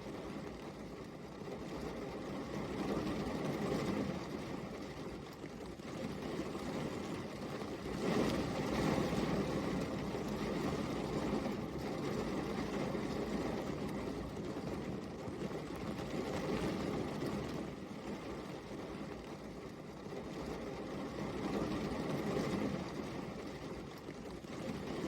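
Steady rainfall: an even hiss that swells and eases every few seconds.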